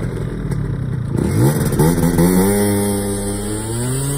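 Piaggio Zip scooter's 70cc two-stroke engine revving hard as it pulls away, its pitch climbing steeply for about a second and then holding high and steady as it rides off.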